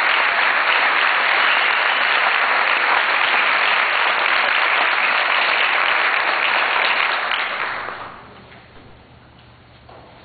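Audience applauding steadily, dying away about eight seconds in, leaving a quiet hall with a faint low hum.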